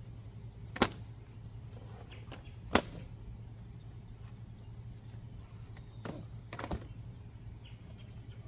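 Plastic packing straps around a cardboard box being cut: two sharp snaps about two seconds apart, then a couple of lighter clicks near the end, over a steady low hum.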